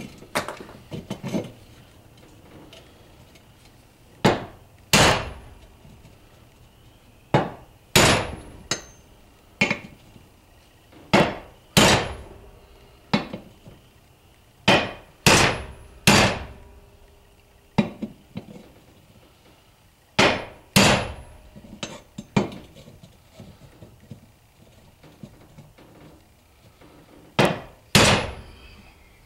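Hammer blows on a socket used as a makeshift bearing driver, knocking a new bearing into its bore in an NP208 transfer case half. About twenty sharp metallic strikes, irregularly spaced and often in pairs, with a longer pause near the end.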